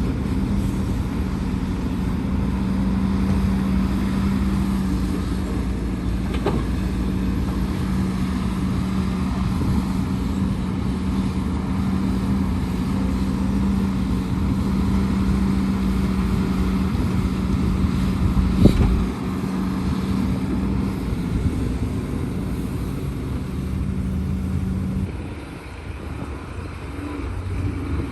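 Heavy diesel machinery engine running steadily, with one sharp knock about two-thirds of the way through; near the end the level dips and the engine note changes and settles lower.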